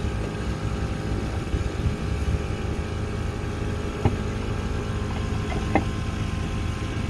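An engine idling steadily, with two short, sharp knocks about four and six seconds in.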